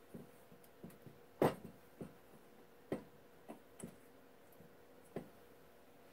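Faint, irregular clicks and light taps, about eight of them, the loudest about a second and a half in.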